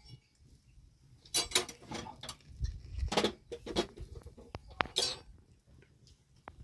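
Irregular clinks and knocks of metal dishes and utensils being handled, in several short clusters over a few seconds, followed by a few sharp single ticks.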